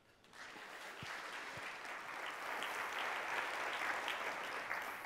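Audience applauding, swelling over the first two seconds and tailing off near the end.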